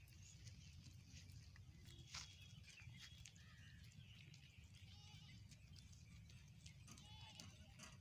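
Faint outdoor ambience: a steady low rumble with scattered small clicks and faint high chirps, mostly near the middle and end.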